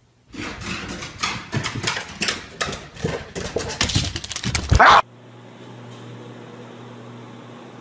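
A dog barking in a quick, irregular series of short barks, the loudest near the end. From about five seconds in there is only a low, steady room hum.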